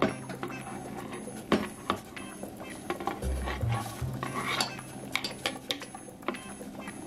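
Kitchen clatter: a handful of sharp knocks and scrapes of a 3D-printed plastic blade against a wooden cutting board and a steel pot, the loudest knock about one and a half seconds in. Background music with a slow repeating bass note plays underneath.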